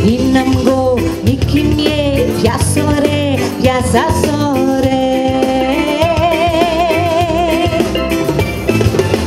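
A woman singing a held, wavering melody into a microphone over a live band with keyboard and drums keeping a steady beat.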